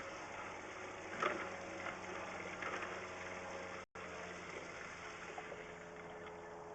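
Low steady background noise with a faint hum and a few faint light clicks. The sound drops out completely for an instant near the middle.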